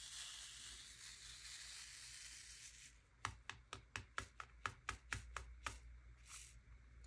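A faint hiss, then about a dozen quick, light clicks, a few a second, from diamond painting drills and tools being handled and tapped.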